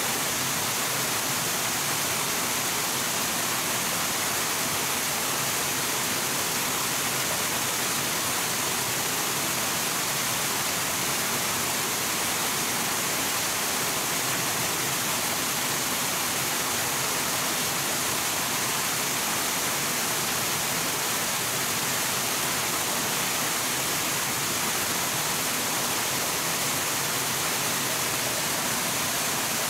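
Steady, unbroken rush of flowing water, even in level, with no distinct events.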